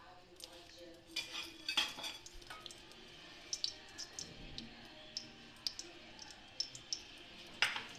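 Ghee melting in a hot kadhai, crackling with scattered sharp little pops and spits, a few louder ones about two seconds in and one near the end.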